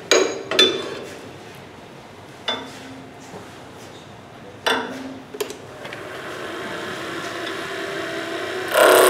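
Sharp metallic clanks and knocks as the wood lathe is set up, then the lathe running with a hum that builds. Near the end a turning tool starts cutting the square 2x4 blank round, a loud rough cutting noise.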